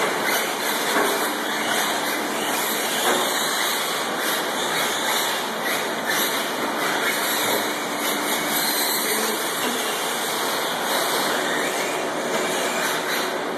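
Radio-controlled 4x4 short-course trucks racing around a track: a steady, noisy whir of their motors and tyres.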